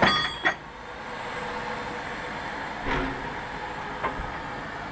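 Metal clanks from the coupling gear between a steam locomotive and a carriage being handled: a ringing clank at the start and a second one just after, then a duller knock and a small click later, over steady background noise.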